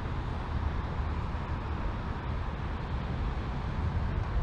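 Wind buffeting the microphone: a steady, gusting low rumble over a broad hiss.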